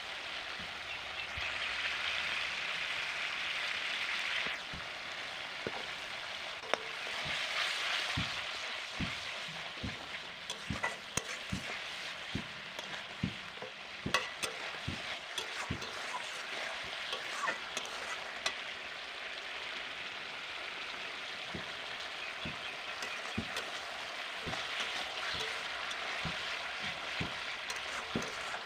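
Onion and ground-spice paste frying in oil in an iron karai, a steady sizzle, being fried down. A flat metal spatula stirs it, knocking and scraping against the pan in a quick run from about nine to nineteen seconds in, and the sizzle swells for a few seconds near the start.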